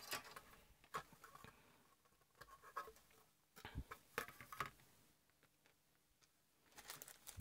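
Faint, scattered clicks and light knocks of a circuit board being handled and turned over on a workbench mat, between stretches of near silence.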